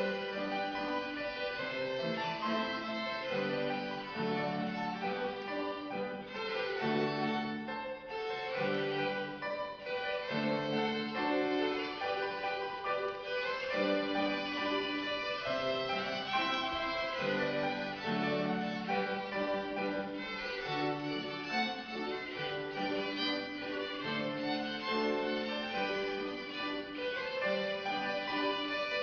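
A violin playing a classical piece, a continuous melodic line of sustained and moving bowed notes.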